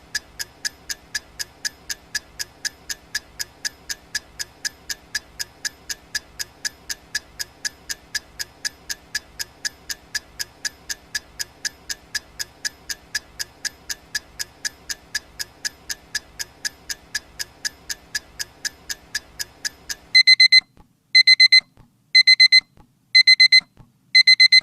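Countdown timer ticking steadily, then from about 20 seconds in a digital alarm clock sounding: loud, high beeps in quick groups, about one group a second, five times, marking that the time is up.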